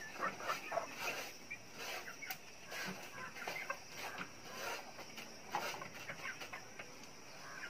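Chickens clucking in short, scattered calls, with a few sharp knocks among them.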